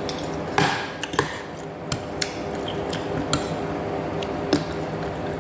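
Metal spoon clinking against a ceramic soup bowl while eating noodles: about seven sharp, separate clinks, over a steady background hum.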